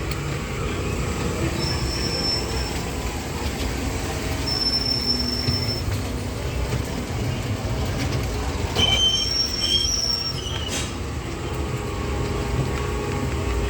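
Amusement-ride car running along its track with a steady low rumble, and several brief high-pitched wheel squeals.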